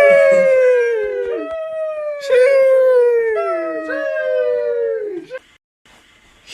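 The meme 'sheesh' sound effect: a voice drawing out a high, howl-like 'sheeeesh' four times in a row, each call starting with a hiss and sliding down in pitch. A short silence follows near the end.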